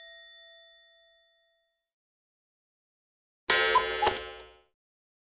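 A bell-like chime sound effect rings out and fades over the first second. After a silence, a second short, many-toned sound effect starts abruptly about three and a half seconds in, lasts about a second, and is the loudest sound here.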